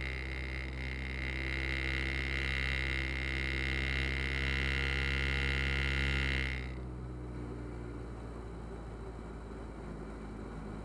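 Diamond DA40's piston engine and propeller droning steadily in flight, heard from inside the cockpit. About six and a half seconds in, the sound suddenly gets duller and quieter and its pitch sinks slightly.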